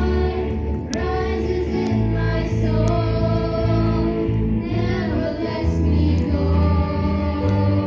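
A group of children singing together into handheld microphones, holding long notes over a musical accompaniment with a steady bass line.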